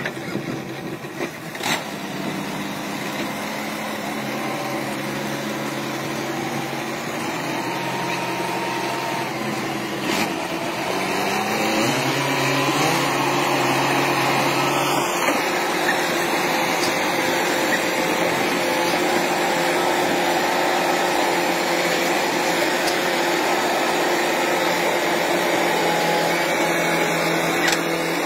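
Diesel tractor engines running hard under load, a steady drone whose pitch shifts around the middle and grows a little louder afterwards, as one tractor tows another stuck in mud.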